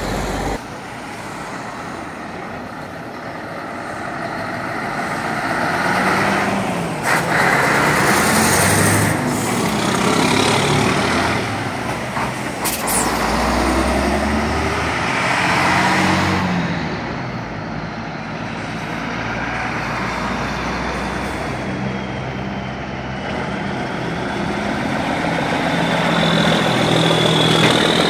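Vintage lorries' engines passing one after another in a convoy, the sound swelling and fading as each goes by. Short air-brake hisses come about seven and thirteen seconds in, and a thin high whine rises near the end.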